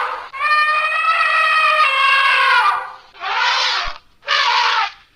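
African elephant trumpeting: one long, high call lasting about two and a half seconds, falling slightly in pitch, then two shorter, noisy blasts with no clear pitch.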